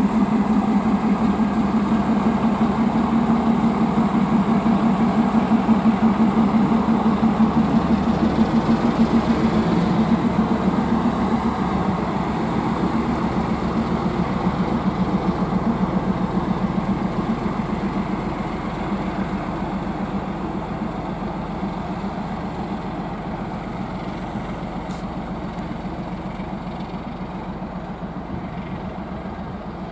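TEM18V shunting diesel locomotive's engine running under power as it pulls away, with a steady pulsing beat that is loudest in the first few seconds and fades slowly as the locomotive moves off.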